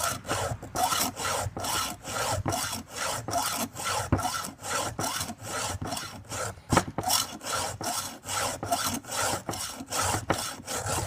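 A file rasping across a dull chainsaw chain cutter tooth to sharpen it, in quick, even back-and-forth strokes, about three a second.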